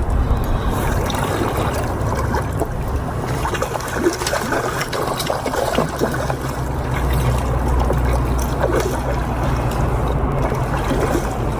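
Water splashing and trickling in many small irregular spatters, over a steady low rumble.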